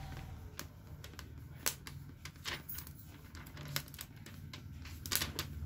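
Irregular light clicks and ticks from hand work on an LCD panel's polarizer film, over a steady low hum.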